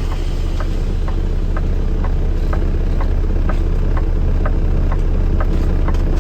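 Steady low drone of a vehicle's engine and road noise heard from inside the cab, with a light, regular ticking about twice a second.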